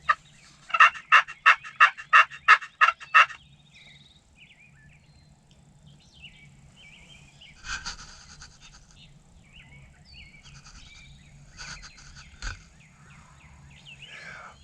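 A rapid series of about nine loud turkey yelps, roughly three a second, stopping after about three seconds; fainter bird calls follow.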